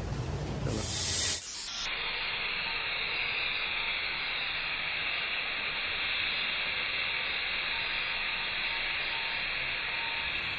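Steam hissing steadily from a large cooking pot on the stove. A brief, louder rush of noise comes about a second in, before the hiss settles.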